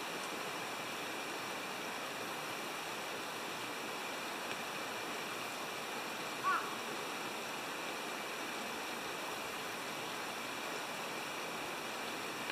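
Steady rushing noise of flowing water, with a brief high chirp about six and a half seconds in.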